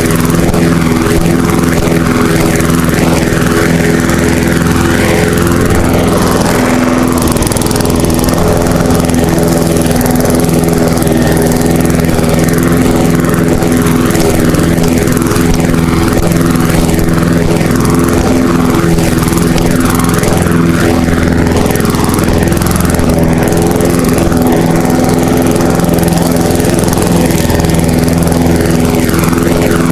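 Lawn mower engine running steadily at constant speed.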